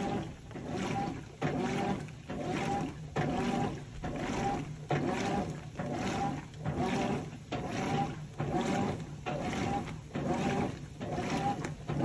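Top-loading washing machine agitating a sudsy wash load: the center-post agitator swishes the water back and forth in a steady rhythm, about three strokes every two seconds, with a short motor whine on each stroke.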